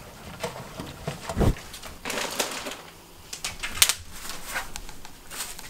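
Things being handled at a kitchen counter: scattered clicks and knocks, a dull thump about a second and a half in, and a short rustle just after two seconds.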